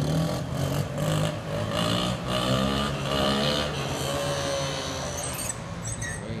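A motor vehicle engine running, its revs rising and falling, then fading near the end.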